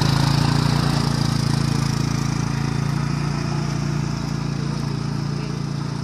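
Small engine of a side-by-side utility vehicle running steadily, slowly fading as it pulls away down a gravel trail.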